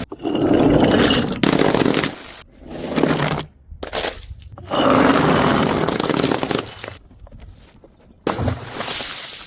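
Glass bottles smashing and shattering, a series of separate crashes one after another with abrupt cuts between them.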